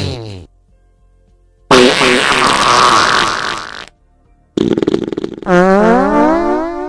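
A string of farts: a falling one trails off at the start, a long rough sputtering one runs from about two to four seconds in, then a rapid flutter turns into a long fart that rises in pitch.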